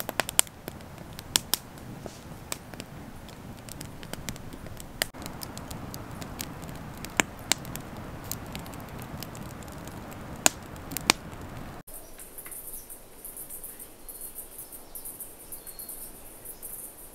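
Campfire burning with a steady hiss and scattered sharp crackles and pops. About twelve seconds in it cuts to insects chirping in a high-pitched, pulsing chorus.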